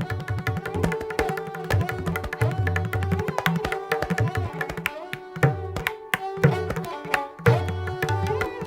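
Tabla playing a fast run of strokes in pashto taal, a seven-beat cycle, with deep resonant bayan strokes under the crisp dayan strokes. A sarangi plays a steady repeating melody line (lehra) beneath it, gliding between notes.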